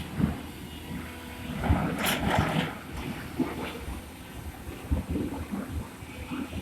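Diesel engine of heavy earthmoving machinery running with an uneven low rumble, with a short, harsher noisy burst about two seconds in.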